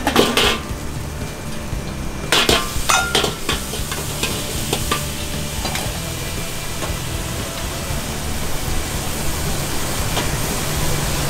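Food sizzling in a hot wok while a metal ladle stirs and scrapes it. Sharp metal clinks of the ladle against the wok come near the start and cluster about two to three seconds in.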